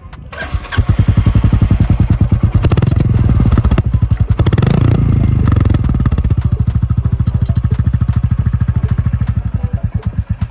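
Royal Enfield Classic 350's fuel-injected 349 cc single-cylinder engine, heard at its stock exhaust, starting up just after the beginning and idling with an even single-cylinder beat. The sound swells for a couple of seconds in the middle with a throttle blip, then settles back to idle.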